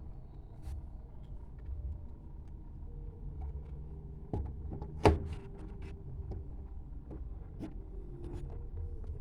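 Scattered light clicks and one sharp knock about five seconds in, from parts and tools being handled while a water inlet valve is fitted to a washing machine, over a low steady hum.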